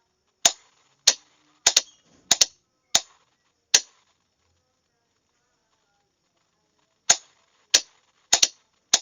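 Morse code sent as sharp clicks, some single and some in quick pairs, spaced unevenly, with a pause of about three seconds between two runs.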